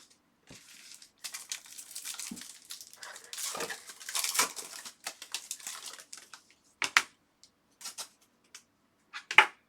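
Foil trading-card pack wrapper being torn open and crinkled, with crackling for several seconds. This is followed by a few sharp clicks of cards being handled, the last near the end the loudest.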